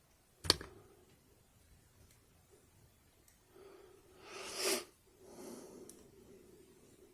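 A single sharp click from handling the lock and picking tools, then, about four seconds in, a breath that swells and stops suddenly, with a softer breath after it.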